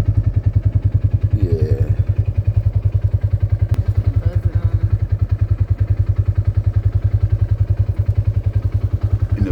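Vehicle engine running steadily with a rapid, even low pulse, about ten beats a second.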